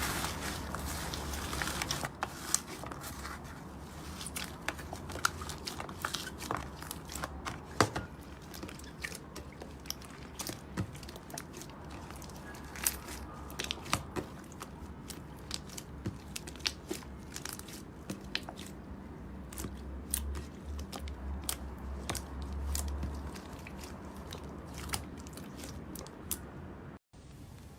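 Hands squeezing and pressing slime, with many irregular small crackling pops and clicks.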